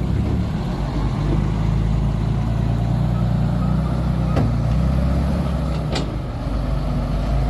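Heavy dump truck's diesel engine running steadily. Two short sharp knocks come about halfway through and again a second and a half later.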